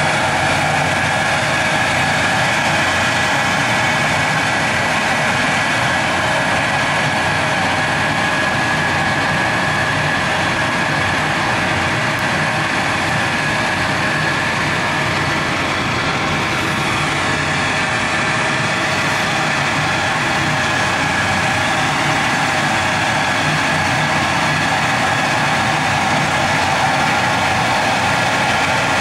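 A machine running steadily: an even mechanical hum with several constant tones held over it, unchanging throughout.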